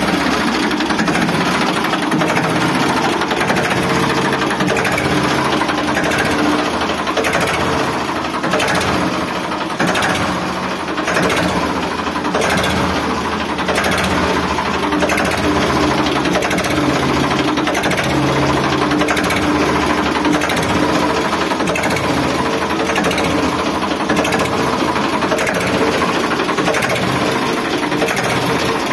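Ford 3600 tractor's three-cylinder engine idling steadily with an even, rhythmic chug.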